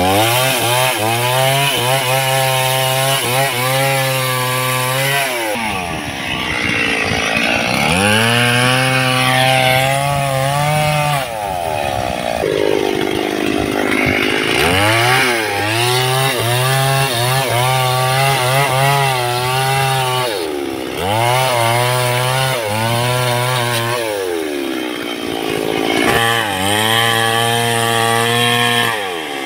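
STIHL MS 382 two-stroke chainsaw running at high revs and cutting through wood in about five spells, its engine pitch falling and rising again in the short breaks between cuts.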